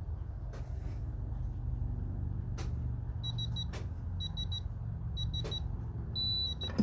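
Digital torque wrench beeping in quick groups of short high beeps as the tightening nears its 35 setting, then giving one longer steady beep near the end as the target is reached. A few sharp clicks come before and between the beeps.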